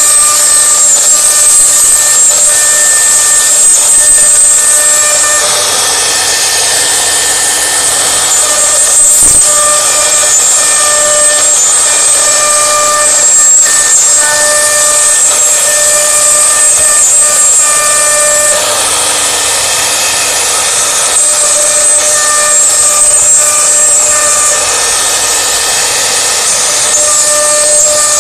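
A CNC router spindle routing a scroll pattern into a wood board: a steady high whine with a few even tones over the hiss of the bit cutting. Twice, about six seconds in and again about two-thirds of the way through, the whine and tones drop back and a broader cutting hiss takes over for a few seconds.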